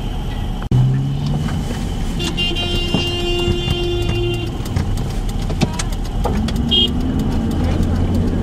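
Car driving along a road, heard from inside the cabin: steady engine and road rumble. A held tone sounds for about two seconds near the middle.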